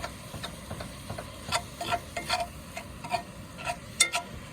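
Ground bison sizzling in oil in a pan while a utensil stirs it, knocking and scraping against the pan about every half second; the sharpest knock comes near the end.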